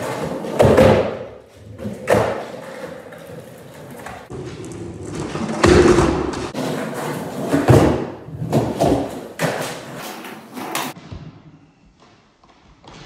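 Skateboard riding on a concrete garage floor: urethane wheels rolling, broken by several loud thumps and slaps as the board pops, lands and strikes wooden ramps and a wooden rail. It goes quiet shortly before the end.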